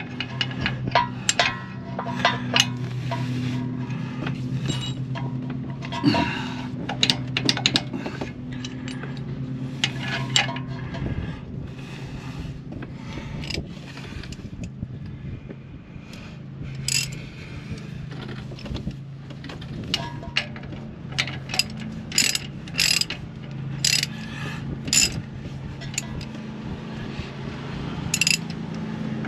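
Hand ratchet wrench clicking in bursts as the lower mounting bolt of a new front shock absorber is tightened, over the steady drone of a lawn mower engine running next door.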